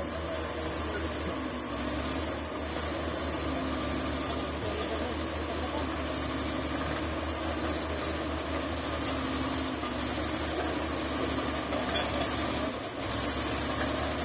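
Shantui bulldozer's diesel engine running steadily with a constant low throb, dipping briefly near the end.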